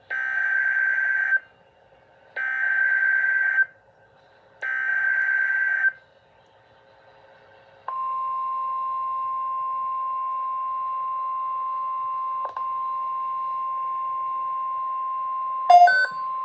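Emergency Alert System SAME header: three bursts of warbling data tones, each about a second and a half long, in quick succession. These are followed by the NOAA Weather Radio 1050 Hz warning alarm tone, held steady for about eight seconds, which signals an incoming weather alert. A short loud crackle breaks in near the end.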